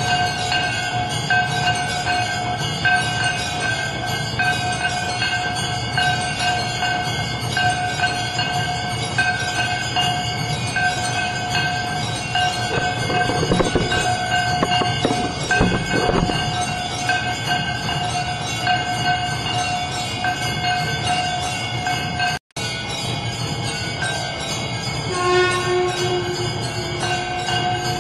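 Temple bells ringing continuously during an aarti, a steady held ringing over a low rumble. The sound cuts out for an instant about three-quarters of the way through, and a lower tone joins near the end.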